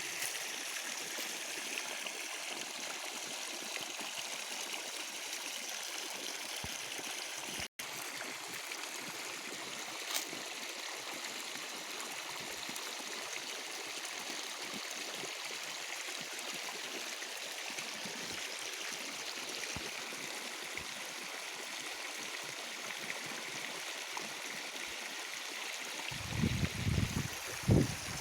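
Irrigation water flowing steadily along a furrow in a maize field, with a few low thumps near the end.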